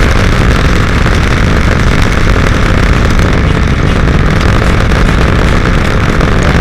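Loud, steady wind rush on an action camera's microphone while riding a Honda CRF250L Rally, with the bike's single-cylinder engine running underneath.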